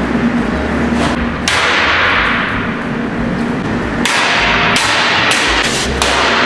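Hammer blows on a sheet-steel machine housing, each strike sharp with a metallic ringing tail. One blow about a second and a half in rings on for a couple of seconds, then about five quicker blows follow near the end as the steel panel is tapped into shape.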